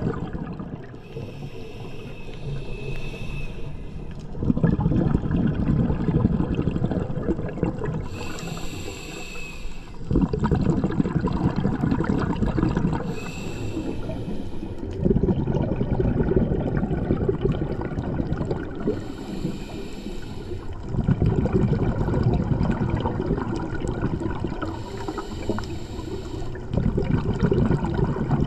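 Scuba diver breathing through a regulator underwater: five slow breaths, each a short hissing inhale followed by a longer, louder stream of exhaled bubbles.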